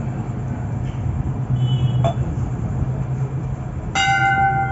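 Steady low engine hum of a vehicle amid traffic noise, with a vehicle horn sounding one long steady honk near the end.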